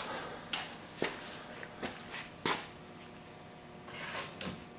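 Plastic air cleaner cover and pleated filter of a push lawnmower being handled and fitted together: a few light clicks and knocks in the first two and a half seconds, then soft handling rustle.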